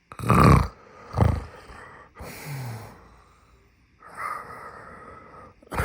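A man snoring loudly in his sleep, in irregular bursts of snores and breaths, the two loudest within the first second and a half and another at the end.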